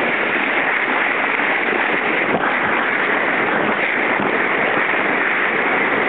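Steady rush of water streaming down a water slide channel around a rider sliding through it.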